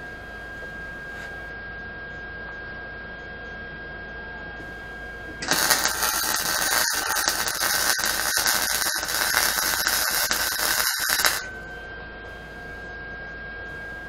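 Wire-feed welder arc crackling on steel tubing for about six seconds, starting suddenly about five seconds in, with a few brief breaks, and cutting off sharply. A steady high-pitched whine runs underneath throughout.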